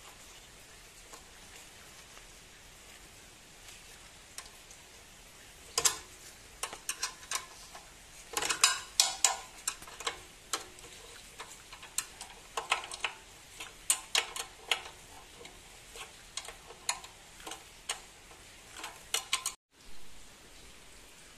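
Irregular runs of sharp clicks and light metallic clinks from a hand tool and the fittings on the mini tiller's handlebar bolt and bracket during assembly. They start about six seconds in and come in bursts for most of the rest.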